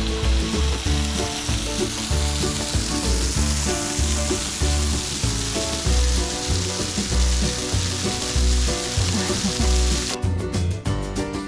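Waterfall spilling, a steady rushing hiss, under background music with a steady beat; the water sound cuts off abruptly near the end while the music carries on.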